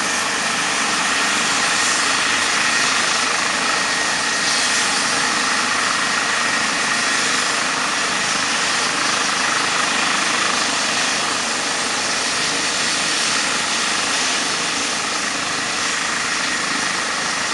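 Eurocopter EC135 air ambulance helicopter running on the ground with its rotor turning, ready to lift off. Its twin turbines give a steady high whine over the even rush of the rotor.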